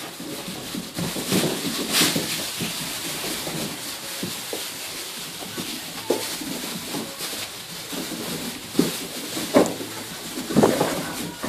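Appenzell goat kids scampering and leaping in a straw-bedded wooden pen: straw rustling and scuffing underfoot, with scattered knocks of hooves against the wooden boards, the sharpest about two seconds in and a cluster near the end.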